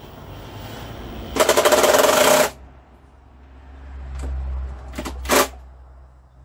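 Handheld power drill running in a burst of about a second with a rapid rattle, then a much shorter burst about four seconds later.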